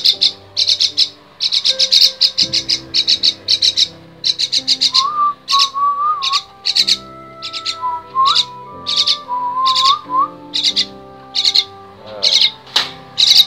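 Young common myna giving loud, harsh rasping calls over and over, about two a second.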